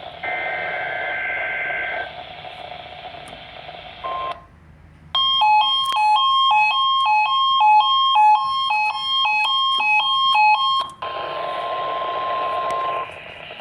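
Midland ER10 weather radio receiving a weekly test through its speaker, with static hiss. First comes the end of the SAME data burst, a shrill two-tone warble. About five seconds in, the radio's own alert beeps loudly for about six seconds, alternating between two pitches. Then a steady warning-alarm tone plays over the hiss.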